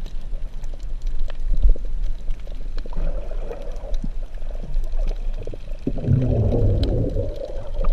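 Underwater sound picked up by a submerged camera while snorkeling: a low muffled rumble of water moving around the camera, with scattered small clicks and crackles. About six seconds in, a louder gurgling, rushing burst comes through and lasts over a second.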